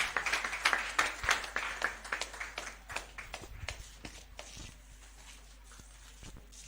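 Congregation clapping, many hands at once, thinning out and dying away over about four seconds.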